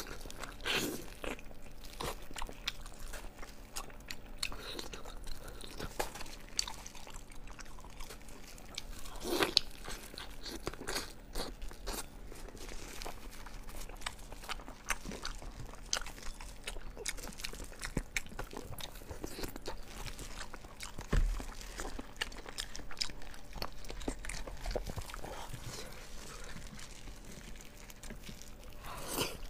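Close-miked eating of braised sheep's head: chewing and biting on the meat, with irregular crunches and clicks, and wet tearing as gloved hands pull the meat apart.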